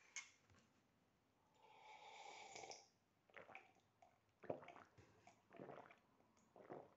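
Faint sounds of a man drinking coffee from a mug: a soft slurp, then a run of short gulps.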